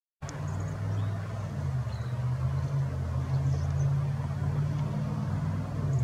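Steady low rumble of a motor vehicle engine starting abruptly, with a few faint high bird chirps over it.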